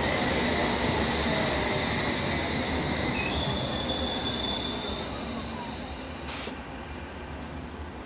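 OO gauge model of a London Underground S-stock train running past on its track: the electric motor whines and the wheels rumble on the rails, then the sound fades over the last few seconds as the train moves away.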